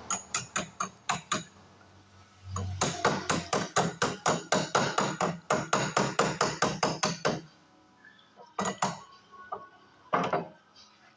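Hammer blows: a few quick strikes, then a steady run of about four strikes a second lasting some five seconds, then two single strikes near the end.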